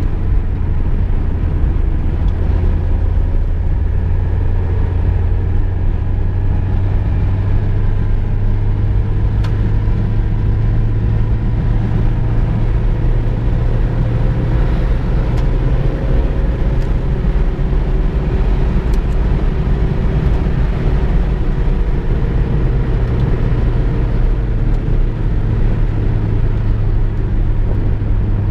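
Inside the cabin of a VW Golf II driving at steady speed: a steady low engine and road rumble, with the engine note rising slightly through the middle and then easing back.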